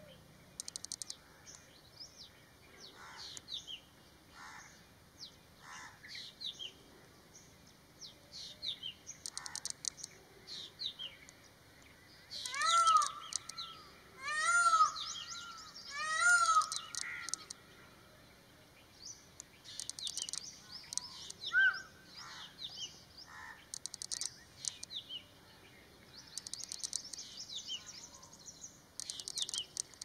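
Birds calling at a waterhole: many small birds chirping and trilling throughout, with three louder arching calls in quick succession around the middle.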